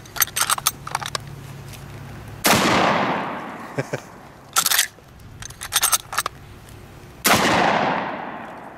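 Two shots from a Chiappa 1887 lever-action 12-gauge shotgun, about five seconds apart, each trailing off in a long echo. Sharp metallic clicks of the lever action being worked come before the first shot and between the two.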